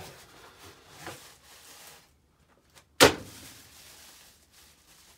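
A small cardboard box being opened and the RC transmitter inside lifted out in its plastic wrapping: soft rustling, then a single sharp knock about three seconds in, the loudest sound, followed by more rustling.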